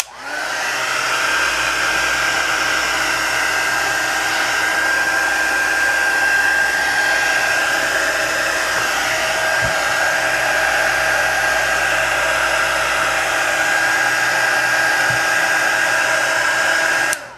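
Hot-air heat gun blowing steadily for about seventeen seconds with a steady whine, spinning up at the start and cutting off near the end, heating to soften the adhesive under a cracked phone screen's glass.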